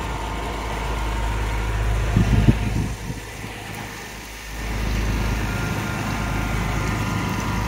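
Houseboat's engine running steadily, a low hum with a steady tone above it, dropping in level for a second or so about three seconds in.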